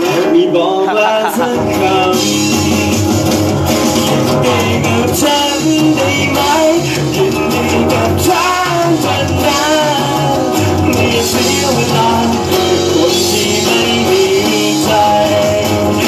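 Live rock band playing with a man singing over electric guitar and keyboard. The bass end of the band comes in about a second and a half in.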